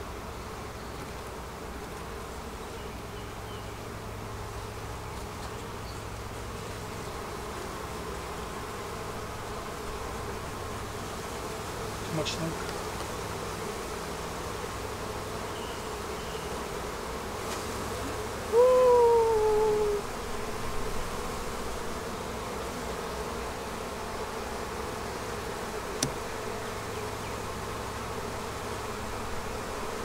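Honeybees buzzing steadily around an opened hive as the colony boils out over the frames, which the keeper puts down to too much smoke. About two-thirds of the way through comes a brief falling tone, the loudest sound, and there are a couple of light knocks.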